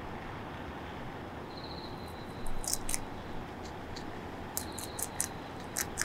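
Japanese bell cricket (suzumushi) singing: a high, pulsed ringing trill heard twice, each time for about a second, over a steady background hiss. Several sharp clicks close by are louder than the song, around the middle and towards the end.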